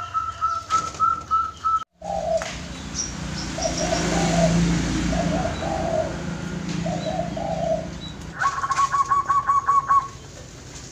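Zebra doves calling. First comes a run of short, evenly spaced high notes that breaks off suddenly. Three lower, warbling cooing phrases follow, and near the end there is a fast rattling run of high notes lasting about a second and a half.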